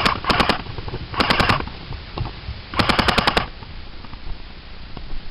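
Airsoft electric gun firing short full-auto bursts of rapid clicks: three bursts in the first three and a half seconds, the last one the longest.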